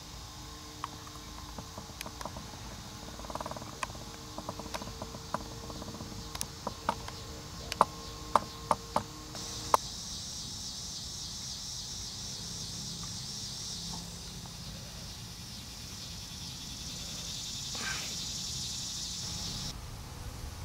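Insects chirring in a steady high, finely pulsing buzz through the second half. In the first half there is a run of sharp clicks, the loudest about eight to ten seconds in.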